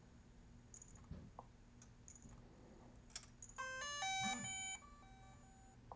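Short electronic chime: a quick run of stepped beeps lasting about a second, starting a little over halfway through, with a fainter tone trailing after it. A few faint taps and clicks come before it.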